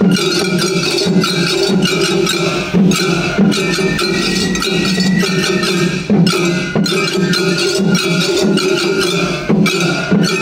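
Shagiri festival music played by several float ensembles at once: taiko drums beaten in a dense, continuous rhythm with clanging hand gongs.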